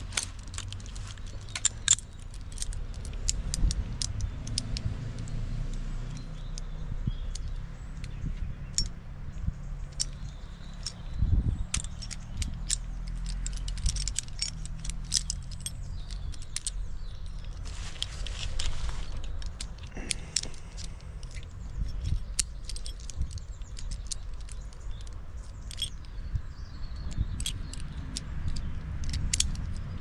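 Metal climbing hardware on an arborist's harness jingling and clinking, with scattered sharp knocks, over a steady low rumble.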